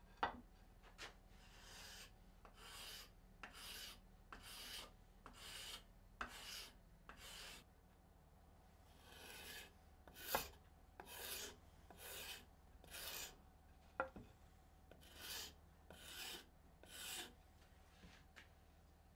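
Faint rasping strokes of a hand tool along a wooden axe handle, about two strokes a second in runs with a short pause midway, and a few sharp clicks among them.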